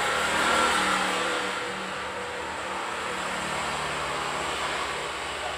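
A motor vehicle's engine, louder about half a second in, then easing off slowly.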